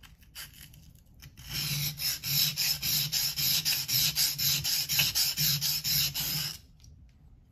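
Opinel knife blade held nearly flat and rubbed on a wet Shapton Kuromaku 120-grit whetstone, working the tip. A few light touches, then about a second and a half in a fast run of back-and-forth scraping strokes, roughly four or five a second, which stops near the end.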